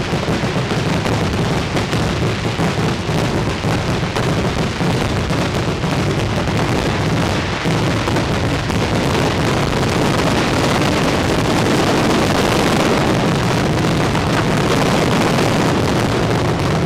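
Fireworks display at its height, set off very close: a dense, unbroken barrage of shell bursts and crackling, with the reports running into one another without a pause.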